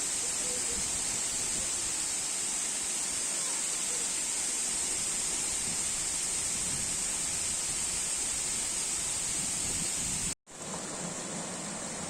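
Steady rush of flowing water. About ten seconds in it cuts out for a moment, then resumes with a slightly different sound and a low hum underneath.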